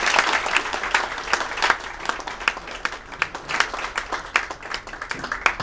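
A room of people applauding, dense at first and thinning to scattered single claps toward the end as the applause dies away.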